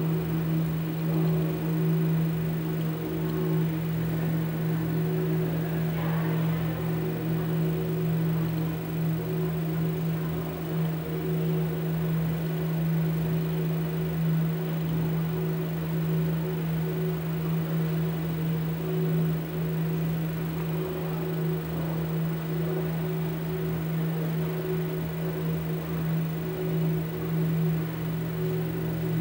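A steady low hum: one deep tone with fainter higher tones above it and a light hiss, unchanging throughout, with a soft tick about six seconds in.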